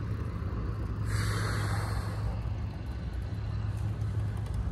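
A motor vehicle engine running steadily, with a hiss of air lasting about a second that starts about a second in.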